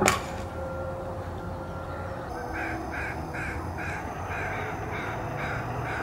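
Crows cawing: a run of about eight caws, roughly two a second, starting a couple of seconds in. A sharp click at the very start.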